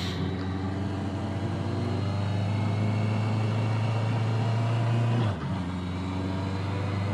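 Honda CBR650R's inline-four engine running at steady light throttle while riding, its pitch creeping slightly up, with a brief dip in the engine sound about five seconds in.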